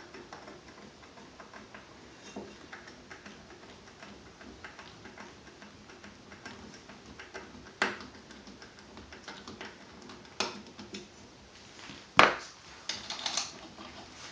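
Small metal clicks and taps of an Allen wrench and parts being worked on a gun vise, securing the hold-down block over an AR-15 lower receiver. Faint ticking throughout, with a few sharper knocks in the second half, the loudest near the end.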